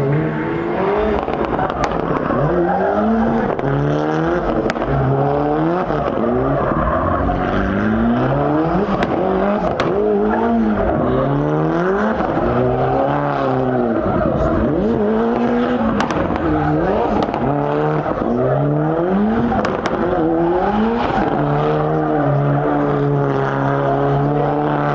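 Turbocharged four-cylinder engine of a Mitsubishi Lancer Evolution revving up and down over and over as the car spins donuts, about one rise and fall every second and a half, with sharp cracks from its anti-lag system and tyres squealing. Near the end the revs hold steady.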